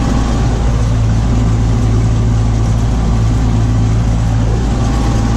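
Tractor engine running steadily under load, driving a stalk mulcher through sunflower stalks: a constant low drone with no change in speed.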